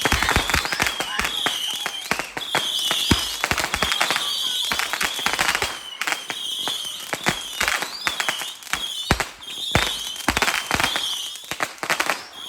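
Fireworks going off in a dense, rapid crackle of pops, with a wavering high whistle that keeps coming back.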